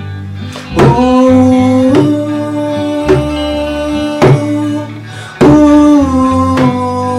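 Hand drum slapped by hand in a steady beat, about one stroke a second, under a man singing long held notes without words.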